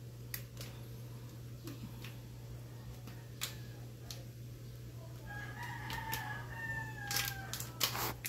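A rooster crows once: one long call of about two and a half seconds that begins past the middle and dips slightly at the end. Scattered light taps and clicks sound throughout.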